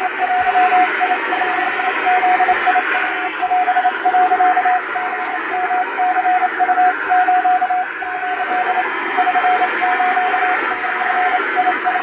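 Japanese wabun Morse code sent with an electronic keyer: a single steady tone switched on and off in rapid dots and dashes, over a constant hiss of radio noise.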